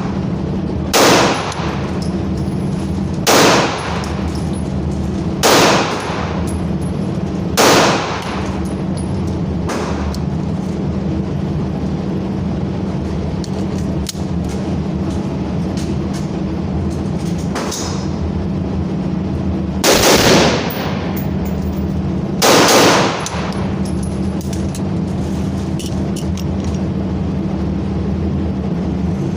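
Gunshots from a firearm: four loud shots about two seconds apart, a long gap with a couple of fainter bangs, then two more loud shots about two and a half seconds apart. A steady low hum runs underneath throughout.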